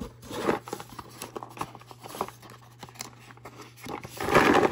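Cardboard box being handled and its lid folded shut: scattered rustles and small knocks, with a louder rush of cardboard near the end.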